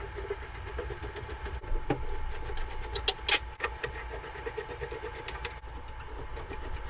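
Scattered light knocks and taps of the wooden Canterbury being handled and shifted, the loudest a little after three seconds in, over a steady low hum with a faint steady whine.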